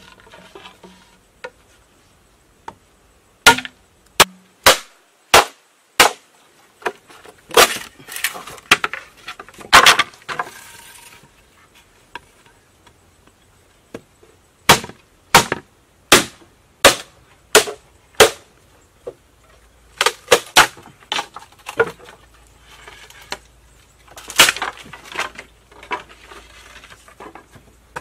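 Sharp wooden knocks of a mallet striking a blade driven into a green bamboo pole to split it lengthwise, in runs of several blows about two a second with short pauses between.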